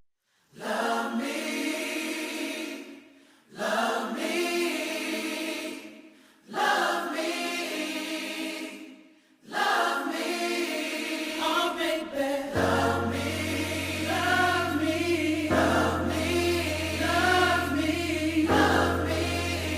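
Choral music: a choir sings three held phrases with short breaks between them, then keeps singing without a break, and a deep bass comes in about two-thirds of the way through.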